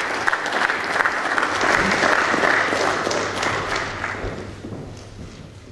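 Senators in a parliamentary chamber applauding, the clapping dying away at about four to five seconds in.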